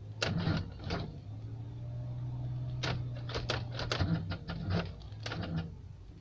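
Lada Zhiguli's starter cranking the engine in slow, uneven pulses, with a steadier hum through the middle, the engine not catching: the battery is too weak to turn it over fast enough.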